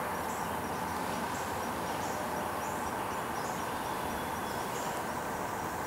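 Woodland ambience: a steady hiss with faint, high chirps repeating every fraction of a second, like an insect calling.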